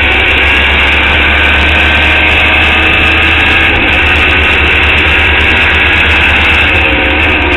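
Formula Indy open-wheel race car's engine running hard at a near-steady pitch, heard loudly from the open cockpit along a straight.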